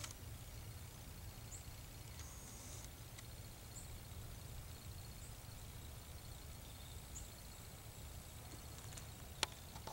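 Quiet outdoor ambience: a low steady rumble with a few faint, high, short chirps spaced through it. A single sharp click comes near the end.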